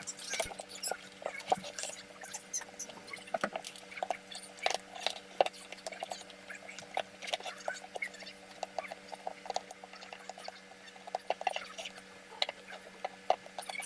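Hands working on an electric drill and tools: irregular light clicks and taps, several a second, over a faint steady hum.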